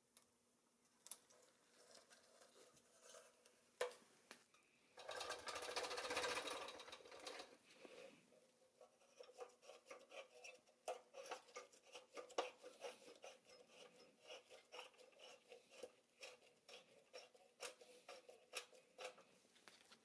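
Restored pressed-steel Nylint Payloader toy being handled: a louder scraping rustle about five seconds in, then a long run of small rapid clicks and rattles as its side crank wheel is turned to work the shovel arm.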